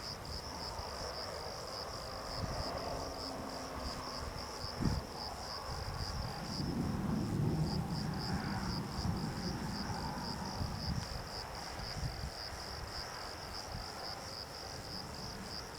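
Insects chirping steadily in a fast, pulsing high-pitched buzz. Beneath it, a low rumble swells in the middle, and there is a single knock about five seconds in.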